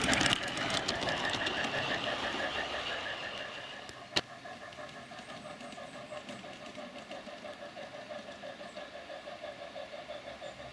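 Garden-railway model train running on outdoor track: a rapid rolling clatter of wheels and motor that fades over the first few seconds, a single sharp click about four seconds in, then a quieter, steady rhythmic beat from the small model steam locomotive and its cars.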